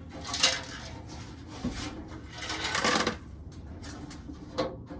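Old corn sheller being run by hand, a clattering rattle of ears being shelled that comes in uneven surges: a short one about half a second in and a longer one past the middle.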